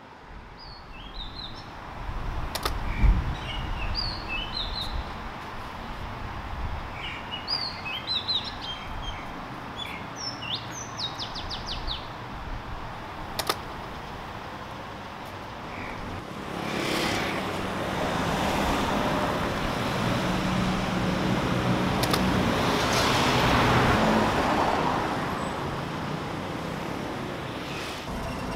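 Small birds chirping over a low background hum, with a low thump about three seconds in. From about halfway, road traffic takes over, with vehicles passing and the noise swelling and fading.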